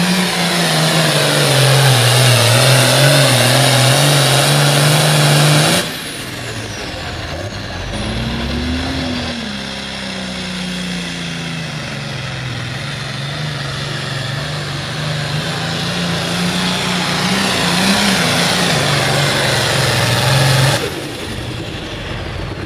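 Turbocharged diesel engine of a Super Farm class pulling tractor running hard under full load, pulling a weight-transfer sled. The engine pitch wavers up and down, with a bright hiss above it, and the sound drops suddenly about six seconds in and again near the end.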